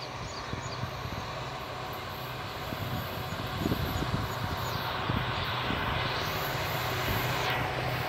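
EMD-built WDP4B diesel locomotive approaching under power, its two-stroke 16-cylinder engine humming over the rumble of the train, growing steadily louder.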